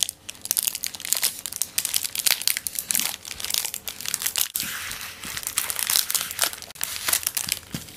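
Plastic chocolate wrapper crinkling and crackling as hands pull the outer sleeve off a Cadbury Dairy Milk Silk bar, in many quick, irregular crackles.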